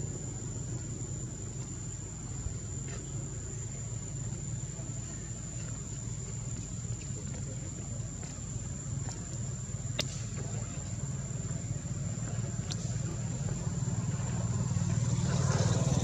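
Steady high-pitched insect drone over a low rumble of motor traffic, with a few faint clicks; a vehicle's engine grows louder over the last few seconds.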